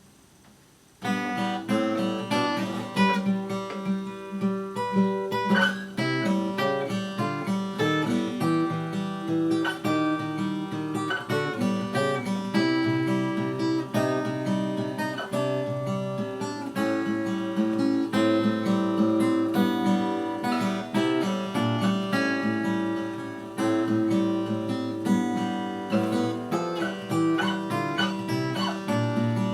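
A newly built OM-style acoustic guitar with a spruce top and mahogany back and sides, played solo. Picked notes and strummed chords start about a second in and carry on throughout.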